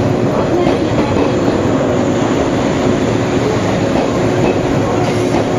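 Freight train running past, a loud, steady rumble of wheels on rail with a steady hum underneath.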